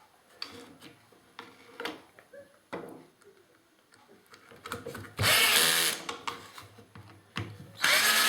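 Cordless drill-driver running screws into the plastic housing of a bar clamp, in two bursts of about a second each, one about five seconds in and one near the end, with small clicks and knocks of handling between. The drill's torque is set high enough to strip the screw holes in the plastic.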